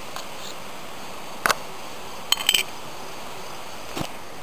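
A few sharp clicks and light metal knocks as an opened Sterno fuel can is handled and set under a folding camp stove: one at the start, one about a second and a half in, a quick cluster around two and a half seconds, and one near the end, over a steady background hiss.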